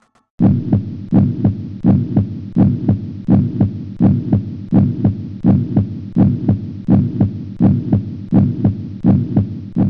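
Heartbeat sound effect: a steady lub-dub double thump, about three beats every two seconds, starting about half a second in.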